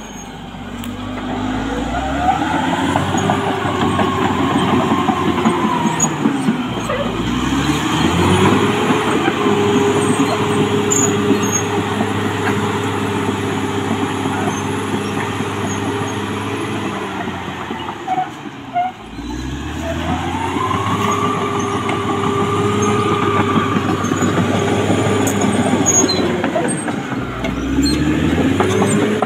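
Caterpillar D6R XL crawler dozer's diesel engine working under load while pushing soil, its pitch climbing and holding, then dropping briefly and climbing again three times, with a higher whine that rises and falls with it.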